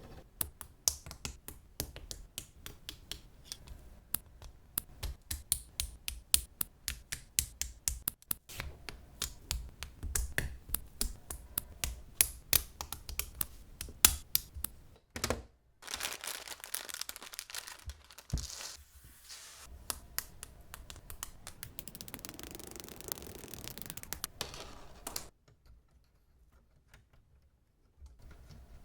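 Plastic building-brick pieces clicking and snapping together in quick runs of sharp clicks, then a stretch of rustling and scraping as pieces are handled, and a few seconds of near silence near the end.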